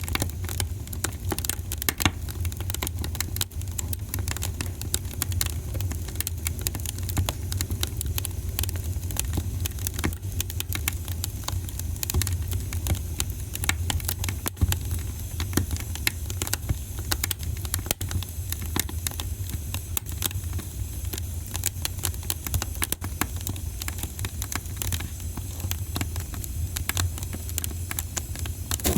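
Fire in a fireplace crackling, with many small irregular pops and snaps over a steady low rumble.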